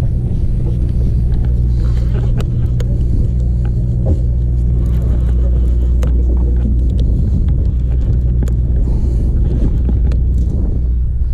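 Boat engine running steadily with a low hum. Scattered light clicks and knocks sound over it.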